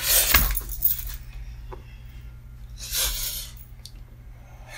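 Brief rustling noises as a person gets up and moves about, one burst at the start and another about three seconds in, with a light click shortly after.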